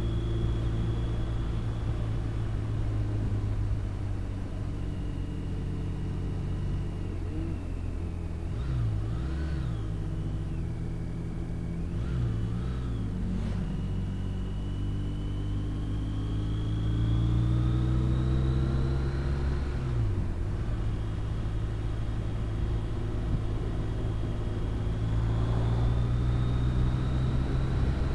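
Touring motorcycle's engine running at road speed with wind rush, heard from a camera on the bike. The engine note dips and recovers a few times, and climbs for a few seconds as the bike accelerates.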